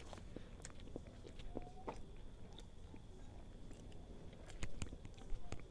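Close-miked mouth sounds of someone chewing a soft steamed pork bun (Thai Po): wet smacks and small clicks. A few louder clicks come near the end.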